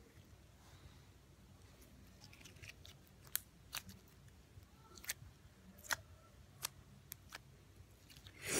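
Purple slime being poked and squeezed by hand, giving off scattered sharp little clicks and pops, about half a dozen over a few seconds. A short, louder rush of noise comes right at the end.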